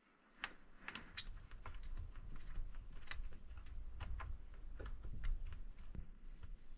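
Faint, irregular small clicks and light knocks of a stiff mount arm and its parts being handled and worked into place, over a low handling rumble.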